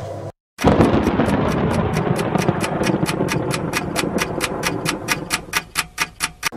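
Added sound effect of rapid, evenly spaced ticking, about four ticks a second, over a rushing noise that fades away toward the end, leaving the ticks on their own. It starts suddenly after a moment of silence at the cut.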